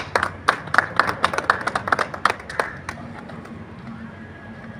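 A few people clapping, an uneven round of claps that dies away about three seconds in.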